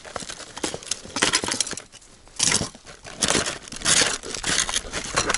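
Hands rummaging through a soft fabric case of ice-fishing rods, the case and its contents rustling and crinkling in a series of short bursts.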